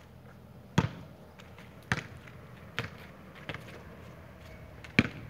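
Basketball coming off the hoop and bouncing on a concrete court: a light knock at the start, then a loud bounce about a second in and three more that come quicker and quicker, and another bounce near the end.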